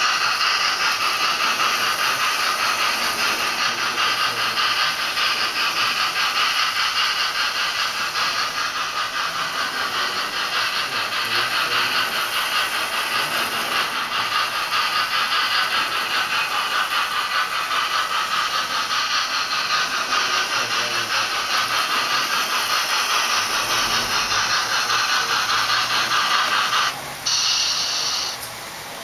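Model trains running on the layout: a steady whirring rattle of small electric motors and wheels on the track. It cuts out about two seconds before the end, comes back for about a second, then stops.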